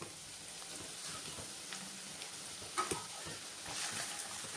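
Chopped onions sizzling in hot oil in a non-stick kadai. A few scrapes and knocks of a wooden spatula stirring them come in from about three seconds in.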